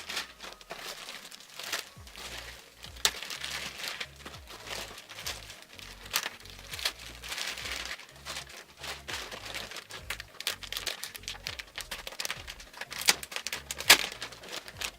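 Packaging of hair bundles crinkling and crackling as they are handled, with sharp crackles about 3, 6, 13 and 14 seconds in. Background music with a bass line comes in about two seconds in.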